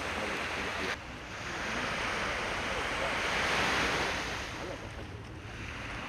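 Sea waves washing onto a pebbly shore, the surf swelling to its loudest a little past the middle and then easing off, with some wind noise on the microphone.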